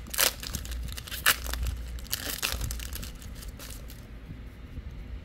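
Booster pack wrapper being torn open and crinkled by hand, with sharp crackles through the first three seconds, the loudest near the start and about a second in, then quieter rustling.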